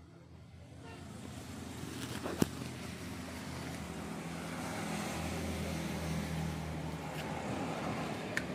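A motor vehicle engine running with a steady hum, growing louder over the first few seconds and then easing slightly. A single sharp click comes about two and a half seconds in.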